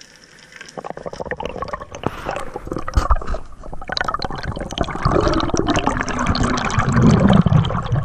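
Underwater bubbling and water rushing with many small clicks, starting about a second in and building to its loudest near the end, as a freediver rises toward the surface in a cloud of bubbles.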